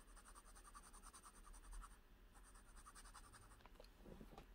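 Fountain pen's Falcon (FA) nib, on a Pilot 912, scribbling rapidly back and forth on paper to lay down an ink swatch: a faint, fast scratching in two runs, the second starting about two and a half seconds in.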